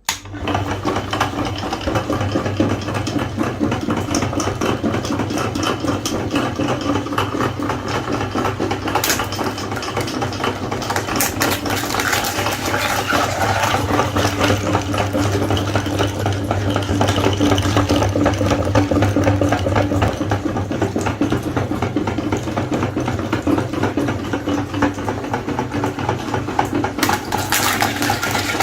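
Electric meat grinder running steadily, its motor hum overlaid by a dense crackle, starting abruptly.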